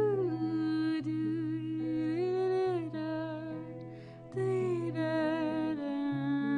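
A singer humming a slow, wordless melody, holding notes and sliding between them, over a soft guitar accompaniment. There is a quick breath about four seconds in.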